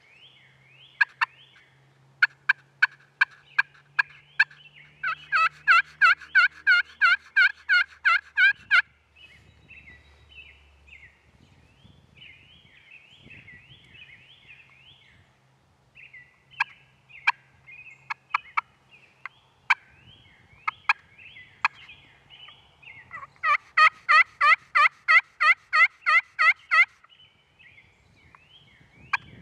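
Wild turkeys calling: two loud runs of yelping, each about a dozen evenly spaced notes at about three a second, with sharp single clucks and quieter quick calls in between.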